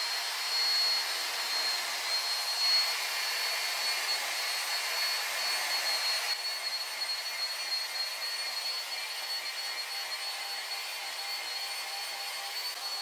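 Electric power scraper running with a steady high-pitched motor whine over a hiss, its blade gouging glue grooves into the metal bottom of a milling-machine vise.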